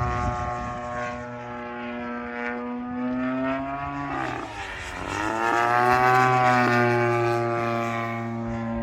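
Radio-controlled model airplane's engine and propeller running at a steady pitch. About four seconds in the note dips, then climbs back up and grows louder before settling again. A rough low rumble, wind on the microphone, runs underneath.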